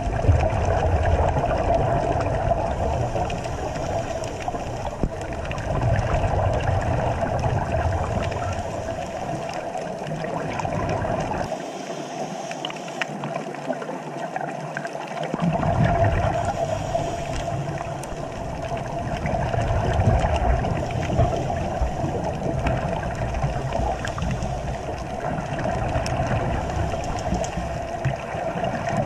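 Muffled underwater water noise picked up by a camera in its waterproof housing, a steady rushing that swells and fades every few seconds.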